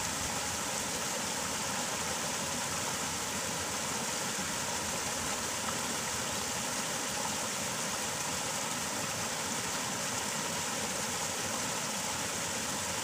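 Water rushing steadily over a small concrete weir in an irrigation ditch, with a faint steady engine-like hum underneath.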